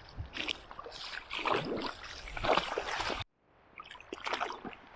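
Water splashing in a run of irregular splashes, as water is thrown onto a waterproof suit to test it. The sound cuts off abruptly about three seconds in and picks up again shortly after.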